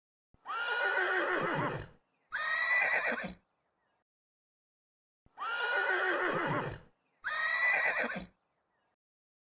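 Horse whinnying: a long whinny followed at once by a shorter one, then the same pair again a few seconds later. Each call starts high and shakes downward in pitch as it fades.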